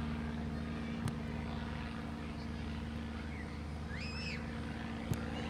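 Soccer ball struck twice, two sharp knocks about four seconds apart as it is thrown up and wedged down with the foot, over a steady low motor drone. A short chirp sounds just after four seconds.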